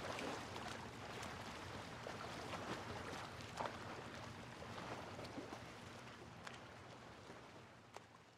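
Seawater washing and lapping: a steady rushing hiss with small splashes that slowly fades out.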